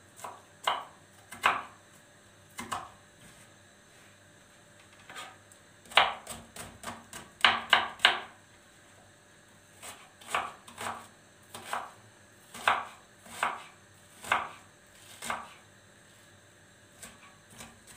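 Kitchen knife chopping onion on a plastic cutting board: sharp knocks of the blade striking the board in short irregular runs, with pauses between, as the onion is finely diced.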